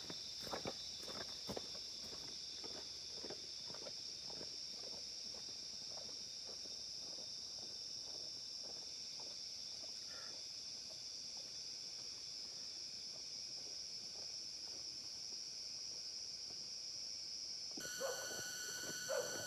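Steady high-pitched chorus of insects such as crickets or cicadas, with soft rustles and knocks in the first few seconds. Near the end the drone changes abruptly to a different set of pitches.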